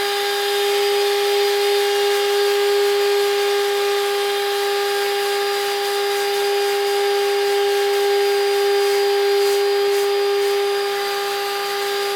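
Bissell SpotBot ProHeat spot cleaner's motor running steadily, a constant high whine with a hum of air behind it.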